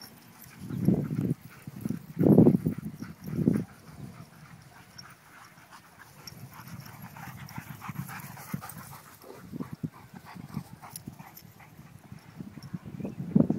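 Black Labrador retrievers panting as they run, with three loud low bursts about one, two and a half, and three and a half seconds in.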